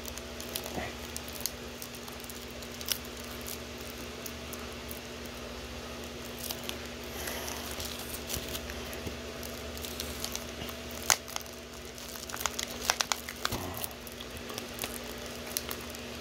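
Fingernail picking and scratching at thin plastic shrink wrap on a plastic Blu-ray case: scattered crinkles and clicks, busiest about eleven to thirteen seconds in, over a steady low hum.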